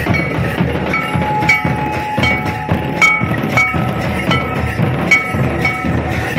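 Double-headed barrel drums of a Santhali dance troupe played in a steady, driving rhythm, with short high notes repeating on the beat and one note held for about two seconds near the middle.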